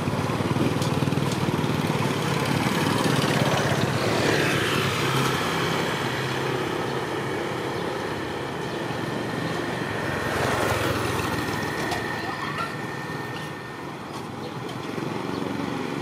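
Small motorbike engines running on the street, with one bike passing about four seconds in and another around ten seconds.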